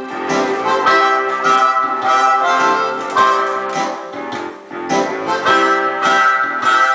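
Blues music playing, with a steady rhythm of held, changing notes.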